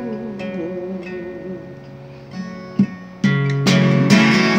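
Steel-string acoustic guitar being strummed. Its chords ring and fade over the first two seconds or so, then a hard strum about three seconds in brings back full, steady strumming.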